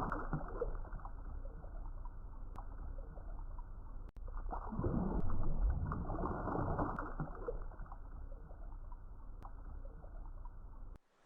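Muffled underwater ambience: a dull rushing noise with faint scattered chirps and ticks, swelling about five seconds in, then cutting off just before the end.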